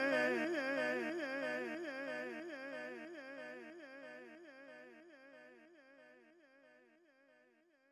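Background music fading out: a single held note whose pitch wavers about three times a second, dying away steadily.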